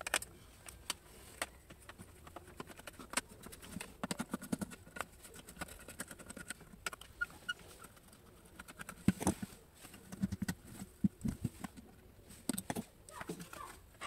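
Hands unscrewing and handling the plastic housing of a Swivel Sweeper Max cordless sweeper: irregular clicks, taps and rattles of plastic parts, with a few louder knocks about nine to eleven seconds in.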